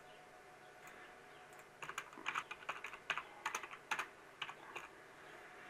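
Typing on a computer keyboard: a quick run of about a dozen keystrokes, starting a little under two seconds in and stopping about a second before the end.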